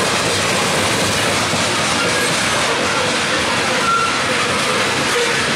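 Loaded coal hopper cars rolling past at trackside: a steady rumble and rattle of steel wheels on the rail.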